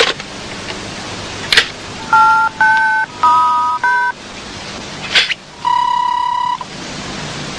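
Push-button telephone being dialled: four short two-tone keypad beeps in quick succession about two seconds in, then one steady beep about a second long. Two short sharp noises come shortly before and after the dialling.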